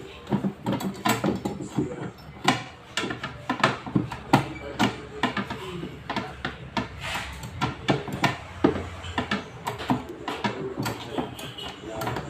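Irregular mechanical clicks and knocks, a few a second, from hand tools and parts being worked during a washing machine repair.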